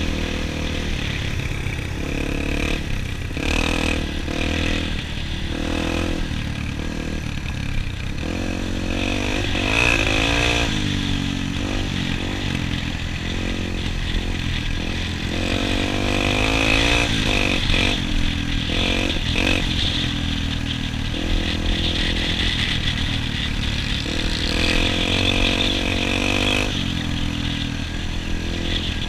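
Dirt bike engine heard from the rider's helmet camera while riding, its pitch rising and falling several times as the throttle is opened and eased off.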